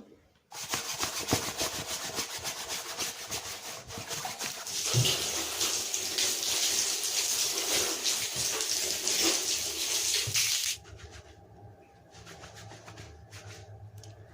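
Tap water running while an air-conditioner filter screen is washed with dish soap, getting louder about five seconds in. The water stops sharply about eleven seconds in, leaving quieter rubbing and handling sounds.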